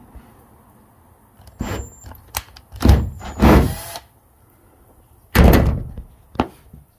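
A series of heavy thumps and bangs on a car's sheet-metal roof as the drilled hole is crudely forced open for a riv nut, leaving it torn and burred. There are about six blows, the loudest a little past the middle of the run.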